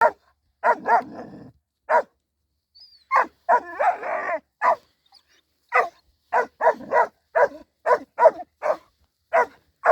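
Baskhan Pariy livestock guardian dogs barking, deep loud barks, sparse at first, then a quick run of about two a second in the second half, with one longer, rougher bark about four seconds in.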